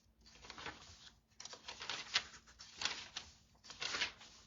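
Several short bursts of rustling and scraping from things being handled close to the microphone.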